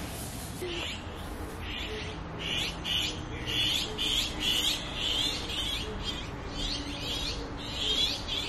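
Many small birds chirping noisily together, with short, high calls coming thick and fast and overlapping.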